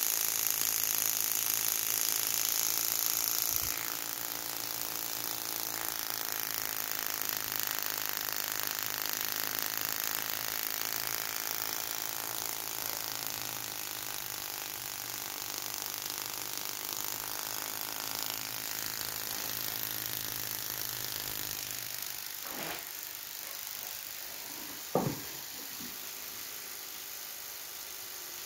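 Spark plugs on a test bench firing from a VW Gol G5 ignition coil pack driven by a Speeduino ECU, a fast, even ticking at a simulated engine speed of about 1,500 rpm. A single sharp click comes near the end.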